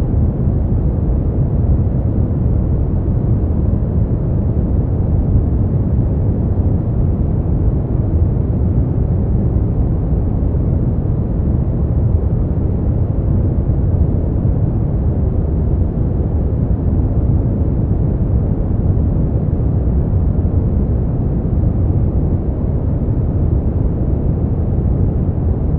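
Brown noise: a steady, unbroken deep hiss, strongest in the bass and fading away toward the treble.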